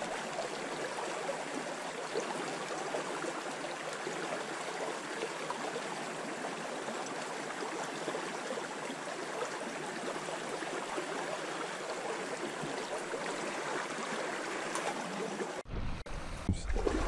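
Shallow creek water rushing and trickling steadily around a wader's legs. Near the end the water sound is suddenly overtaken by a low rumbling noise as the camera moves.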